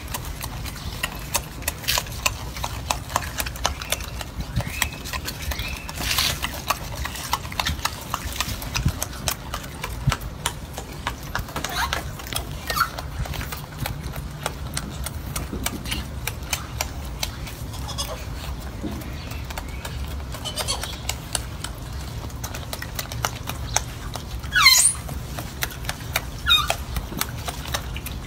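Golden snub-nosed monkey chewing pieces of apple and watermelon up close: a dense run of small crunches and wet clicks over a low steady rumble. Near the end, two short high squeaks that sweep downward in pitch, the first the loudest sound.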